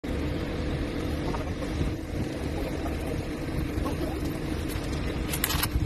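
Mobile cranes' diesel engines running with a steady low rumble. A brief sharper noise near the end.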